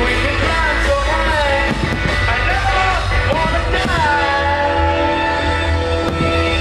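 Rock song with a singer holding long, gliding sung notes over a steady beat.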